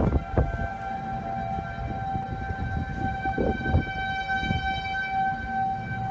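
Outdoor tornado warning siren sounding a steady held tone, with gusts of wind buffeting the microphone.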